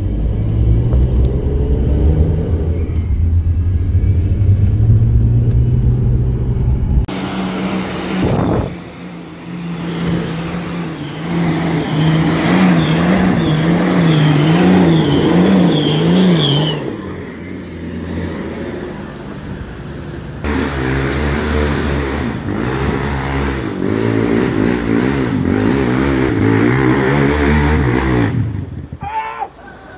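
Off-road vehicle engines across several short clips. First a 4x4's engine runs steadily while driving. After a cut about seven seconds in, a 4x4 climbing a rocky track revs up and down in quick swells. From about twenty seconds in, a quad bike's engine revs on a dirt slope, cutting off just before the end.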